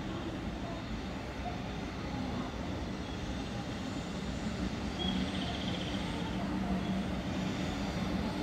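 Shinkansen 500 series train approaching the station: a steady rumble that grows slowly louder as it nears.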